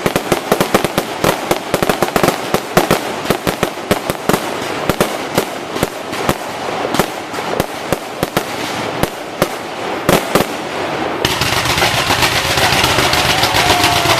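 Fireworks display: a dense, rapid crackle of small bursts for about eleven seconds, giving way near the end to a steadier rushing noise.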